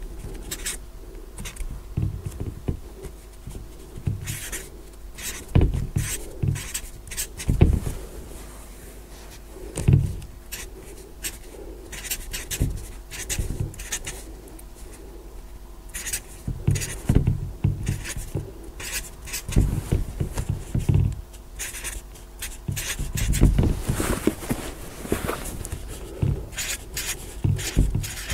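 Felt-tip marker writing digits on a board: a stream of short, quick scratching and tapping strokes as each figure is drawn, with a few louder low knocks.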